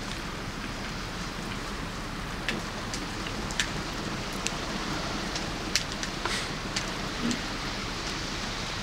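Steady rain hiss with scattered sharp ticks of individual drops.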